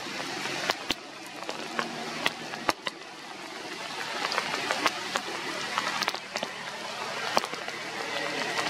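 Rain falling on forest leaves: a steady hiss with many sharp drop hits close by, growing louder about three seconds in.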